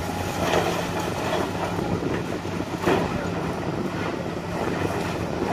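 Tracked hydraulic excavator's diesel engine running steadily as its bucket breaks up a small concrete building, with crunching and clattering of rubble. A loud knock comes nearly three seconds in.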